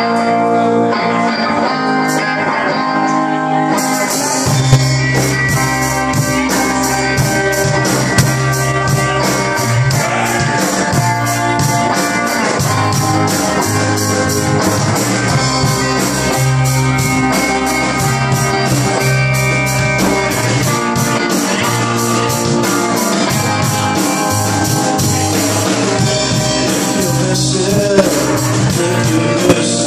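Rock band playing live: a lone electric guitar plays the intro, then about four seconds in the drums, bass guitar and second guitar come in together and the full band plays on with a steady cymbal beat.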